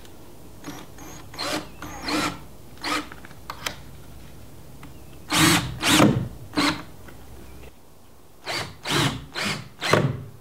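Cordless drill driving a 1 1/4 inch wood screw into a board, run in short bursts: about a dozen brief whirs in three groups, with the screw seating in the wood.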